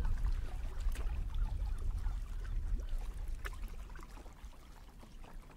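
Sea water lapping and splashing against a kayak's hull at water level, small irregular splashes over a low rumble that fades in the last couple of seconds.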